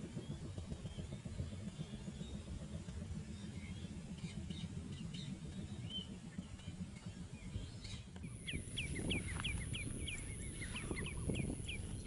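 Birds chirping faintly over a steady low rumble. About two-thirds of the way through, a steady high whine sets in and a quick, even series of short chirps, about three a second, becomes the clearest sound.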